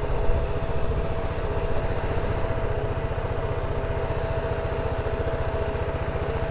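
BMW G310GS's single-cylinder engine running steadily as the motorcycle is ridden, its rapid even firing pulses heard with a thin steady whine above them.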